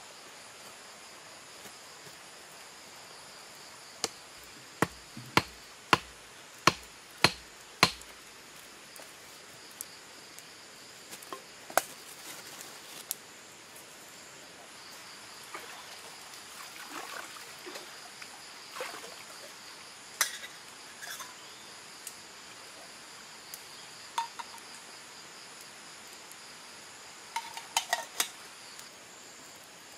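About seven sharp wooden knocks in quick succession as a stick is struck while a forked-stick pot hanger is built. Scattered handling clatter follows, and a few sharp metal clinks come near the end. Steady insect chirring runs underneath.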